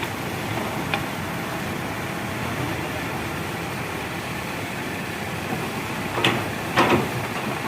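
Diesel engine of heavy machinery running steadily under work, with a faint knock about a second in and two short, sharp sounds about half a second apart near the end.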